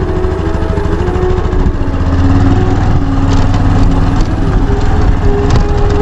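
Motorcycle engine running at low speed on a rough dirt trail, pulling a little harder from about two seconds in.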